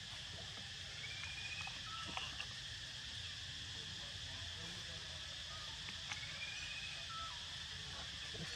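Outdoor ambience of a steady insect drone, with two short, high, slightly rising calls, one about a second in and one about six seconds in, plus a few soft clicks.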